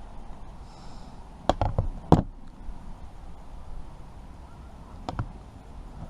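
Metal multi-tool being handled: a quick run of four sharp clicks and knocks about a second and a half in, and two more near the end.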